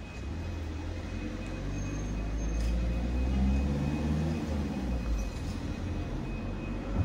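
A motor vehicle passing close by: a low engine rumble that builds to its loudest about three and a half seconds in, then eases off.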